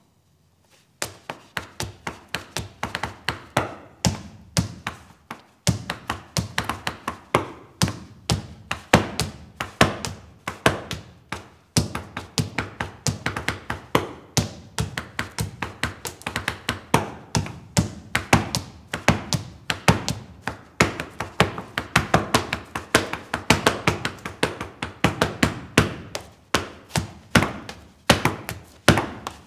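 Rapid percussive tapping and knocking, many strikes a second in uneven clusters, starting about a second in.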